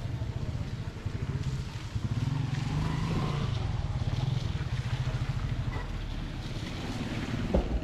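A motor vehicle's engine running steadily, a low hum with an even pulse.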